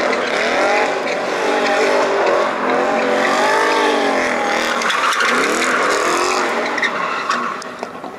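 BMW E30 drifting: its engine revs up and down at high revs while the tyres squeal and skid. The sound fades away near the end.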